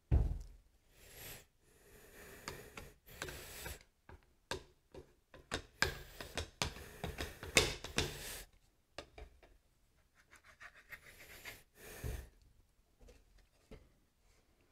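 Wood glue being spread by hand over hardwood veneer for a laminated glue-up: irregular rubbing and smearing strokes, with a soft knock at the start and another about twelve seconds in.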